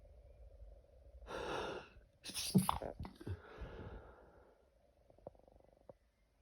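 A person sneezes from allergies: a sharp breath in, then one loud sneeze about two seconds in that fades into a breathy exhale. Two faint clicks follow near the end.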